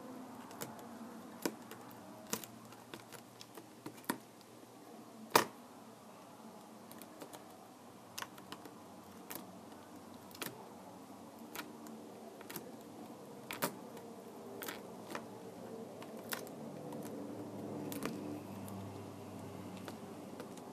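Scattered small clicks and taps of hand tools and plastic parts being handled while working on a Kindle Fire tablet, with one louder sharp click about five seconds in.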